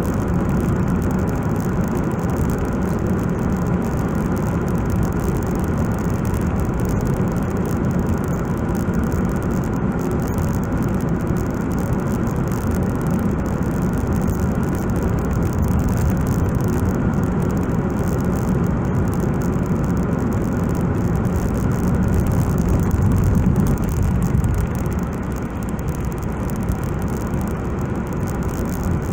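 Steady road and engine noise inside a car cabin while driving at speed, easing off slightly about 25 seconds in.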